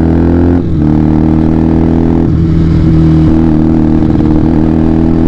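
Benelli TNT 300's parallel-twin engine running through an aftermarket SC Project exhaust while riding. The note breaks briefly about half a second in and again around two seconds in, then holds steady.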